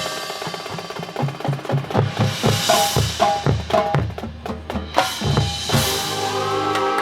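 Marching band percussion section playing a fast drum passage: snare and bass drum strokes with cymbal crashes, then the band's held chords come back in about six seconds in.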